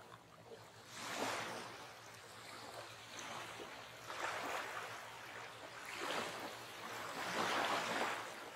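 Sea waves washing onto a shore, coming in slow surges that swell and fade every couple of seconds, the last one the loudest.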